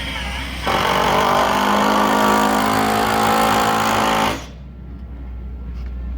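Power drill driving a fixing into an AAC concrete panel, running at a steady pitch for about three and a half seconds and cutting off sharply.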